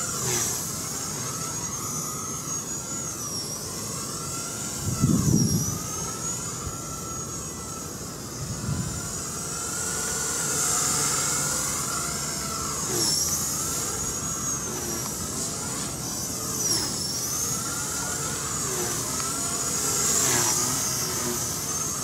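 Walkera V120D02S mini electric flybarless RC helicopter flying: a high-pitched motor and rotor whine that keeps rising and falling in pitch as it manoeuvres. Wind buffets the microphone, the loudest gust about five seconds in and a smaller one near nine seconds.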